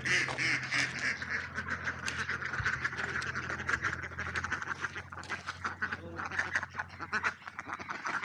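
A flock of ducks quacking, many short calls overlapping one another without a break.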